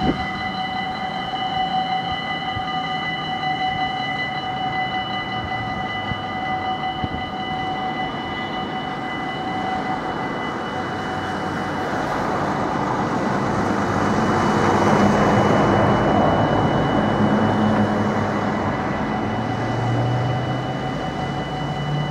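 Dutch level-crossing warning bells ringing steadily as the crossing closes and the barriers lower. Around the middle a broad rush of noise swells up and fades under the ringing.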